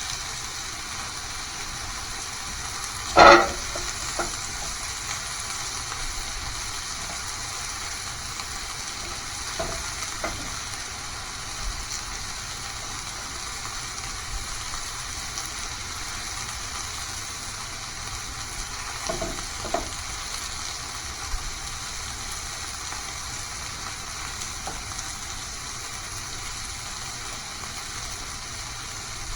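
Food sizzling steadily in a hot pan, with a loud metal clank about three seconds in and a few lighter knocks of utensils later on.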